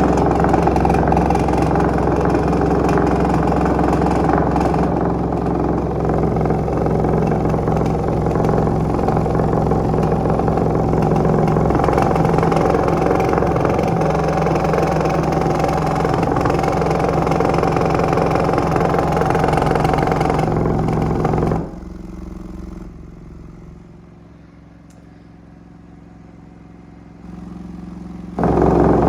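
Car subwoofer playing open-air, driven by a low test tone from a phone frequency generator: a steady, loud buzzing drone, with the cone pushed to large excursion and distorting. About three quarters through it drops much quieter for several seconds, then comes back loud just before the end.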